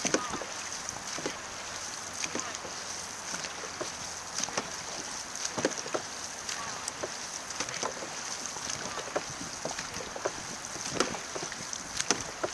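Dragon boat paddles dipping and splashing into the water in strokes about once a second, over a steady wash of water and wind.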